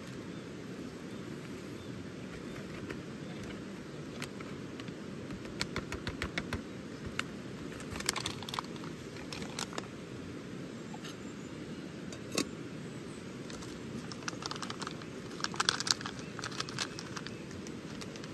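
Steady low rush of a river flowing, with scattered light clicks, rattles and crinkles of handling gear from about five seconds in, several in quick clusters near the middle and toward the end.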